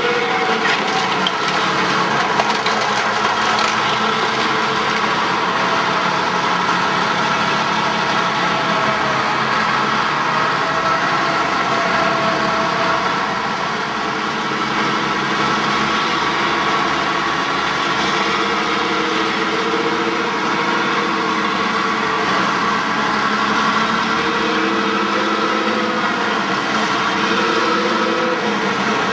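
LARC LX amphibious vehicle's diesel engines idling steadily.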